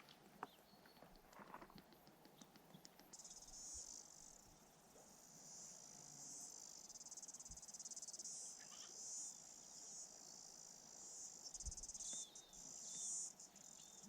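Faint, steady high-pitched chirring of insects, cicadas or crickets, starting about three seconds in and breaking off briefly near the end.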